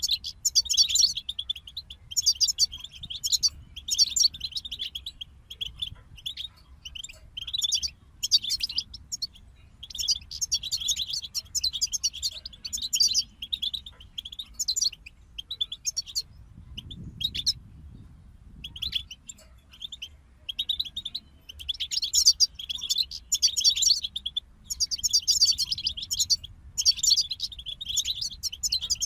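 European goldfinch song: fast, bright twittering phrases in bursts separated by short pauses, with a longer lull about two-thirds of the way through.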